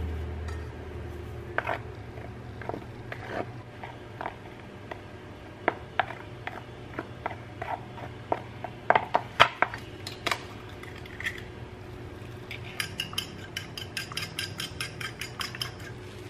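Wooden spoon tapping and scraping against a clear tray while stirring salt into flour: scattered sharp taps, the loudest cluster about nine to ten seconds in. Near the end comes a quicker run of light clicks, about six a second.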